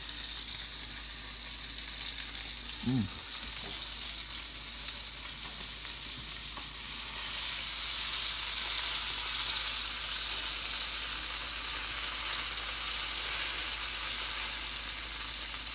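Hamburger patty sizzling in an electric skillet: a steady frying hiss that grows louder about halfway through.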